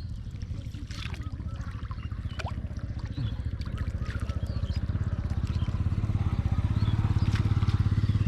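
A small engine running with a fast, even pulse, getting steadily louder as it comes closer.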